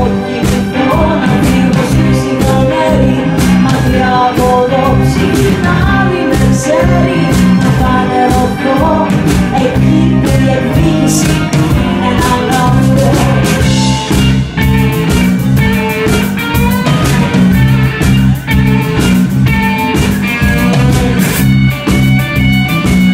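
Live band heard from the audience: a woman's lead vocal over electric guitar, keyboard and drums. About two-thirds through the voice drops out and the band plays on.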